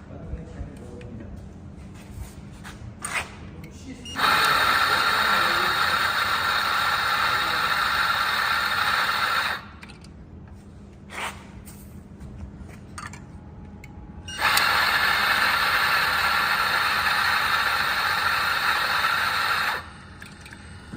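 BG64T3 electric coffee grinder running twice, about five seconds each time, while it is being tested on a fine grind setting. Light clicks and handling noise come before and between the two runs.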